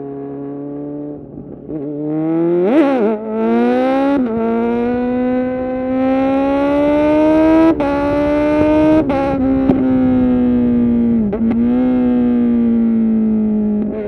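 2020 Kawasaki Z900's inline-four through an SC-Project full titanium exhaust, heard from the rider's seat under hard acceleration. A sharp rev rise comes about three seconds in, then the pitch climbs through the gears, with brief breaks at the upshifts near four, eight and nine seconds. After that the pitch falls as the throttle eases, with a short blip about eleven seconds in.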